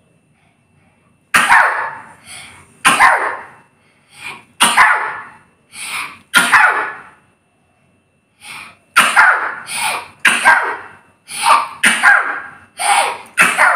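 Repeated sudden, loud sneezes, some coughing, brought on by powder sniffed up the nose. Several come about a second and a half apart, then after a pause of about two seconds a faster run of about ten.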